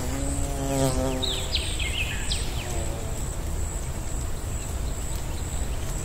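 A flying insect buzzes close by for about the first second, its pitch wavering as it moves, then a few quick downward-sweeping bird chirps come about two seconds in, over a steady high whine and low outdoor background noise.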